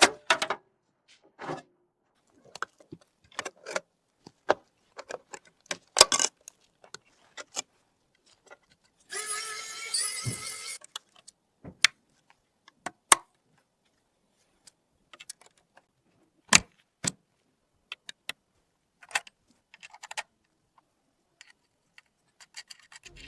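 Scattered sharp clicks and clacks of computer parts being handled and fitted together during a PC build, with a rougher two-second rasp about nine seconds in.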